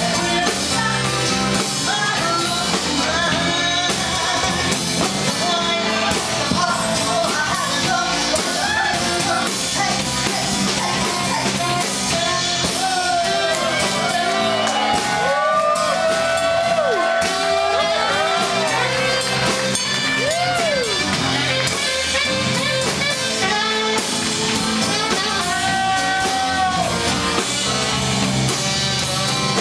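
Live band playing a song with drums, guitars and saxophone while a woman sings, her voice gliding and holding long notes; the saxophone plays out front near the end.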